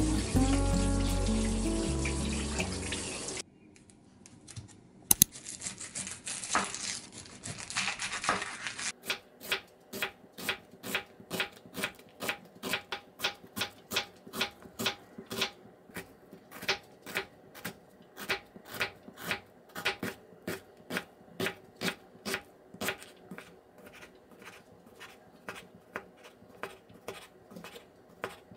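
Ceramic kitchen knife chopping an onion and then sliced sausage on a wooden cutting board: a steady run of sharp taps on the board, about two a second. It opens with music over running tap water, which cuts off about three seconds in.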